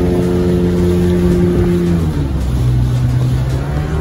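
A small speedboat's motor running under way, with water noise around the hull; about two seconds in the engine note drops as the throttle is eased back, then picks up again near the end.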